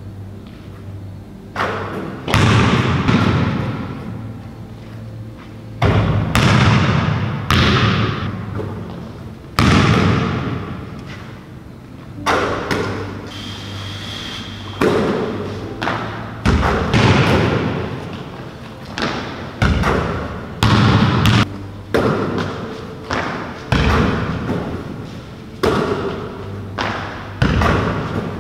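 Basketball bouncing on a hardwood gym floor during a shooting session: a string of hard thuds, about one every second or two, each trailing off in the gym's echo.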